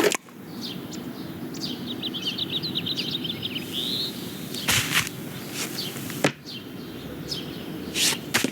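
Film sound effects: a quick run of high, bird-like chirps, then a short rising chirp, over a steady background hiss. A few sharp clicks or knocks follow, about five, six and eight seconds in.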